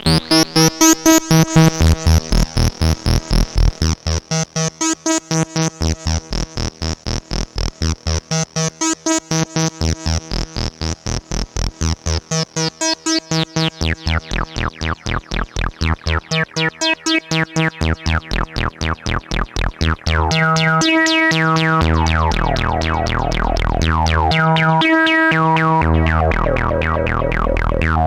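PAiA Fatman analog synthesizer playing a fast repeating sequence of short, pitched notes, about three to four a second, with effects added in Ableton. About twenty seconds in, the notes run together into a continuous sound with sweeping filter glides.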